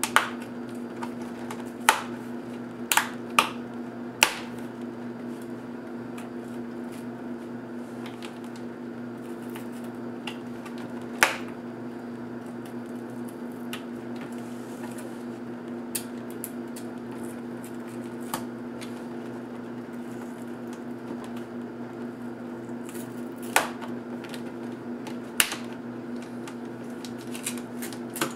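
Sharp plastic clicks and snaps from an HP DV7 laptop's plastic screen bezel as it is pried off the display lid, its retaining clips letting go: several in the first few seconds, then a few more spread out later. A steady low hum runs underneath.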